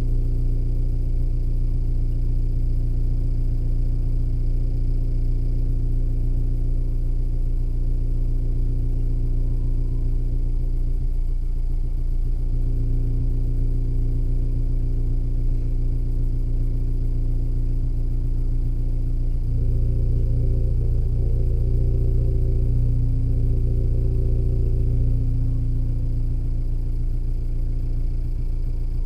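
Seat Leon Mk3 FR's 1.4 TSI turbocharged four-cylinder petrol engine idling from cold, heard at the tailpipe. It runs steadily, and its note shifts slightly twice, about twelve and twenty seconds in.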